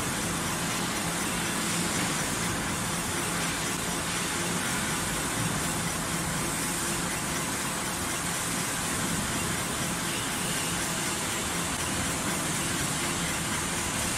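Heavy-duty CNC flanging machine running as it spins a centrifugal fan's front plate: a steady, even noise with a faint low hum underneath.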